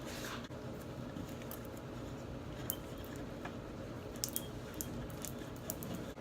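Scattered light clicks and clinks of tools and bolts as a winch is unbolted and taken apart by hand, irregular and a few per second at most, over a steady low hum.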